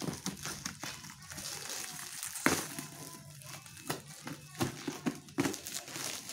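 Bubble wrap and plastic film crinkling and crackling as it is cut open with scissors, with a few sharp snips, the loudest about two and a half seconds in.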